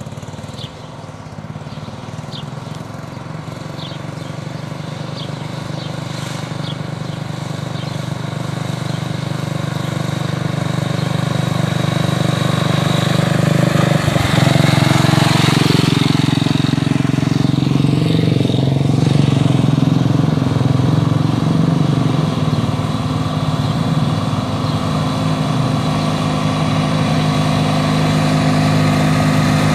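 Two garden tractors running flat out in a drag race, a rat-rod garden tractor and a Jacobsen 14 HP, their engines growing louder as they come up the lane. The rat rod passes close about halfway through, and the Jacobsen is close near the end.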